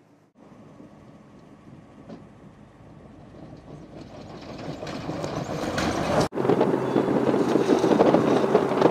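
Electric off-road race car driving fast over desert dirt: the rush of tyres and flung gravel with no engine note, growing steadily louder as it approaches. After a short break about six seconds in, it goes by loud and close.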